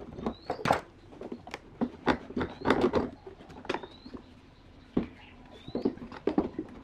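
Wooden pieces knocking and clattering, a curved pine strip being handled against wooden jig blocks on a plywood bench. A bird chirps a short rising note several times in the background.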